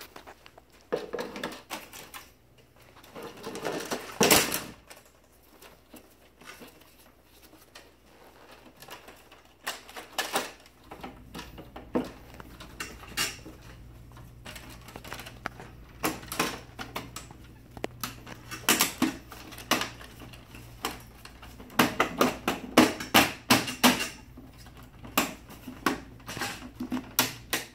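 Plastic side cover of an HP laser printer being handled and pressed back onto the frame: scattered clicks and clatter, with a quick run of louder snapping clicks near the end as the cover's locking tabs latch.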